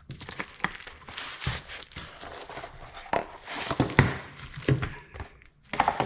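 Plastic bag crinkling and cardboard box rustling as a power strip in its bag is pulled out of the box and set down, with a few soft knocks along the way.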